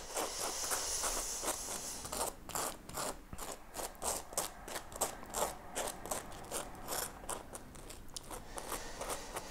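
Table knife scraping margarine across a slice of dry toast: a steady run of short rasping strokes, a few each second.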